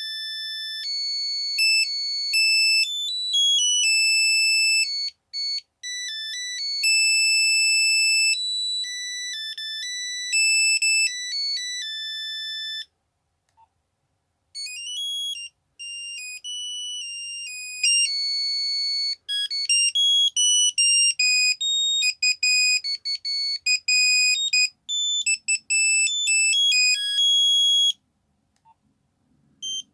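Nokia 3210 monophonic ringtones playing, one melody of single beeping notes after another. One tune ends about 13 s in, a second plays after a short pause until about 28 s in, and a third begins right at the end.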